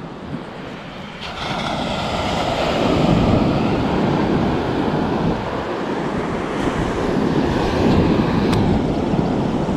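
Surf washing onto the beach, mixed with wind rushing over the microphone, getting louder about a second in.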